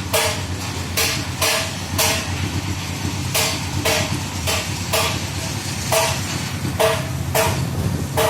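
A hammer striking sheet metal, about two blows a second, each with a short metallic ring, with a pause of about a second in the early part; typical of panel beating bodywork. A steady low hum runs underneath.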